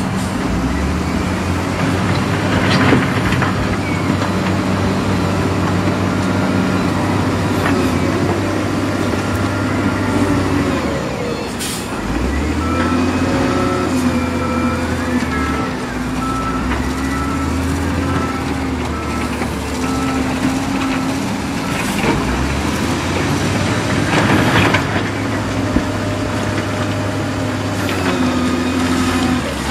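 Diesel engines of a wheel loader and dump trucks running and revving up and down while working, with a few sharp clanks and hisses.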